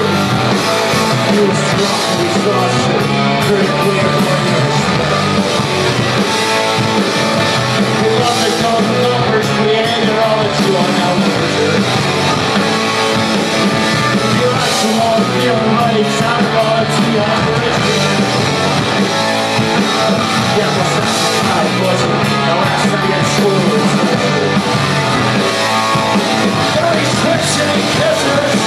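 Live rock band playing loudly: electric guitars, bass and drums, heard through the room from the crowd.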